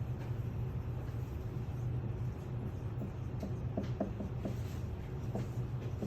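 A steady low hum, with short, faint strokes of a pen or marker drawing on paper clustered in the second half.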